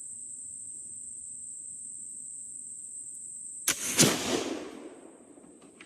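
A .45 calibre Pedersoli flintlock dueling pistol firing: a sharp snap of the lock and priming, then about a third of a second later the louder black-powder shot, dying away over a second or so. A cricket's steady high trill runs underneath.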